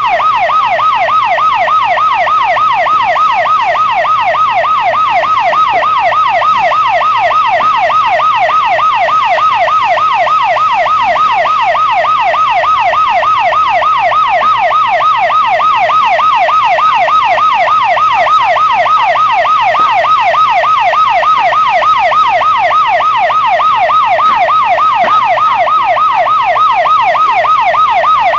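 Electronic emergency siren on a fast yelp, sweeping rapidly up and down several times a second, loud and unbroken.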